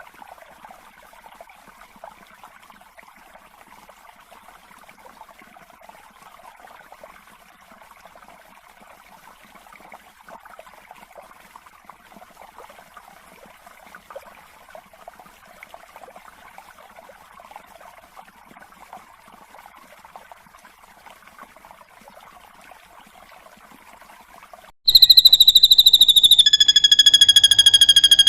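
Faint, continuous chirring chatter from a bird-song training recording. About 25 s in, a sudden loud, steady high whistle starts, dips slightly in pitch and then holds.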